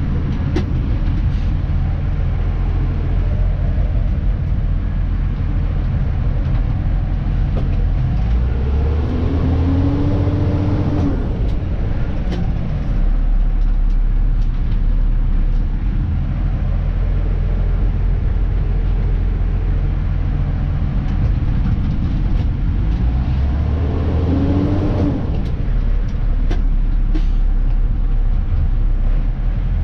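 Dennis Elite 2 refuse truck's diesel engine running steadily. Twice, about 9 seconds in and again about 23 seconds in, its note rises for a couple of seconds and then settles. Scattered sharp clicks are heard throughout.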